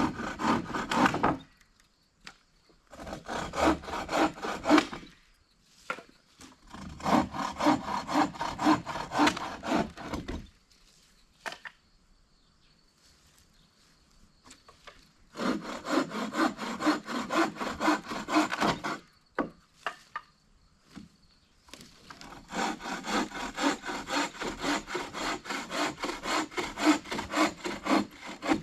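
Hand saw cutting through wood with quick, even back-and-forth strokes, in five spells separated by short pauses.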